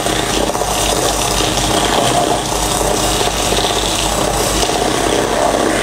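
Electric hand mixer running steadily, its beaters creaming butter and sugar in a stainless steel bowl.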